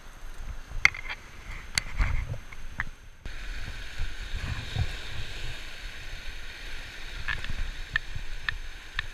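Sea surf washing over shoreline rocks, with a low rumble of wind on the microphone and a few scattered sharp clicks.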